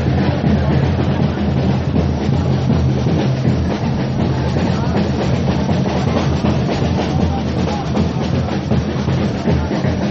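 Supporters' samba drum section (bateria) playing a continuous, dense beat, with heavy low drums under it.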